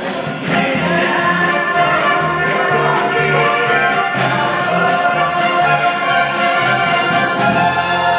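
Live pit band with brass and a full chorus singing together, loud with a steady drum beat, swelling about half a second in as the number builds toward its big finish.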